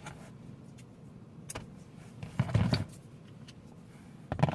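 Handling noises inside a car interior: a few light clicks and taps, with a louder rustling clatter about two and a half seconds in and another short one near the end.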